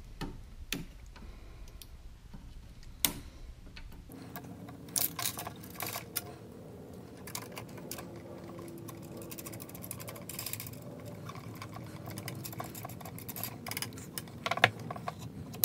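Scattered small clicks and light knocks of a line-counter trolling reel being handled and seated on a rod's reel seat, the reel-seat collar screwed down to hold it.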